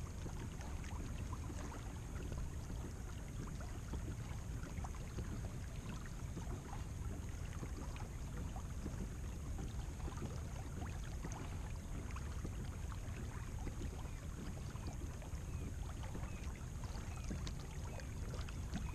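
Quiet open-water ambience from a sit-on-top kayak: a steady low rumble of light wind on the microphone, with small scattered ticks of water lapping against the plastic hull.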